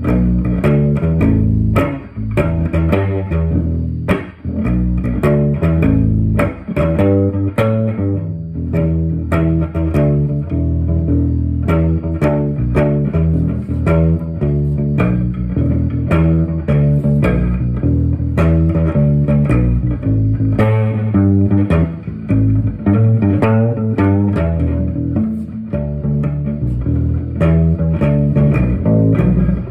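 1954 Kay K-162 hollow-body electric bass played through an amp, fingers plucking a continuous line of single notes that step in pitch about twice a second.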